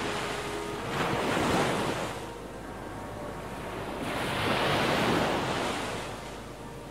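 Sea waves surging and washing over a rocky shore ledge, swelling twice, with wind rumbling on the microphone.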